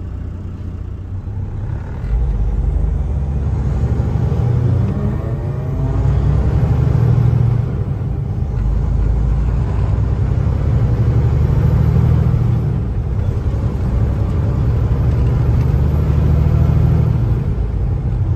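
Kenworth T680 semi-truck's diesel engine pulling and picking up speed, heard from inside the cab: a deep drone that gets louder about two seconds in and rises in pitch, dropping back briefly a few times.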